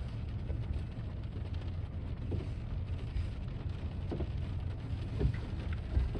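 Steady rain falling over the low, steady rumble of a slow BNSF grain train rolling past, with a few short knocks.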